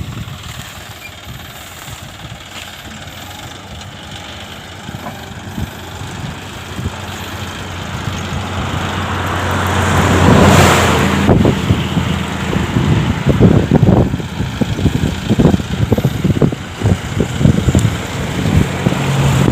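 John Deere 5050D tractor's three-cylinder diesel engine running, building in revs and load about halfway through as it pushes soil. In the second half come many irregular knocks and clunks as the tractor jolts over a field rutted by a rice harvester.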